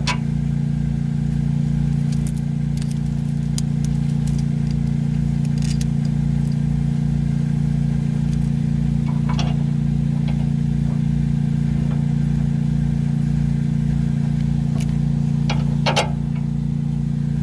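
A steady low engine-like hum with a slight throb, with a few sharp clicks and knocks as sway bar link parts and a new bushing are handled and worked into place.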